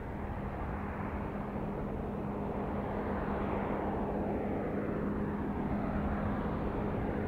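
Risen 915 light aircraft on its takeoff roll, its Rotax 915 iS engine and propeller at takeoff power. A steady drone with one constant low tone, growing a little louder as the plane nears, with a falling swish in the middle.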